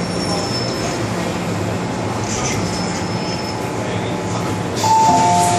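Inside an MTR M-Train car slowing to a stop at a platform: the train's steady running hum with a faint high-pitched squeal. Just before the end, a loud two-note descending chime sounds from the train's on-board chime.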